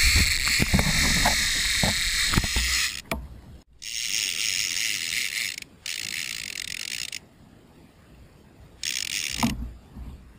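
Fishing reel's drag buzzing in three short runs as a shark pulls line off, the last and shortest near the end. Before the runs, a rush of noise with knocks and bumps.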